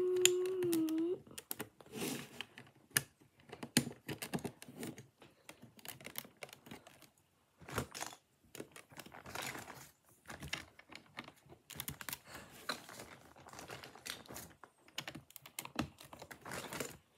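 Plastic Lego bricks clicking and clattering as they are picked up and pressed onto a build: a steady run of irregular small clicks. A short hum from a child's voice sits in the first second.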